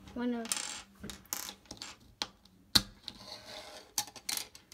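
Plastic Lego pieces clicking and clattering as they are handled, with a sharp snap a little past halfway.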